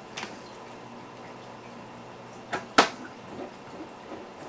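A few sharp clicks and taps of a small screwdriver against the screws and plastic case of a laptop, one loud click a little past the middle.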